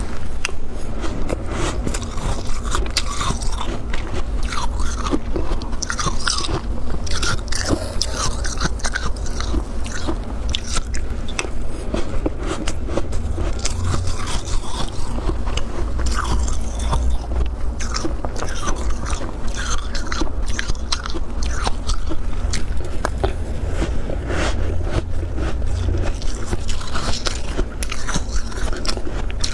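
Close-miked biting and chewing of powdery freezer frost: dense, irregular crunching and crackling throughout, over a steady low rumble.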